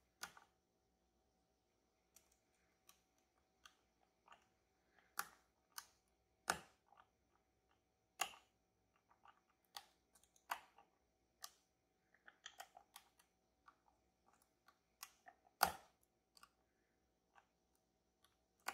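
Lock picks working in the sliders of an EVVA Dual lock: scattered faint metallic clicks and taps at irregular intervals, a few much louder, the loudest about two-thirds of the way through.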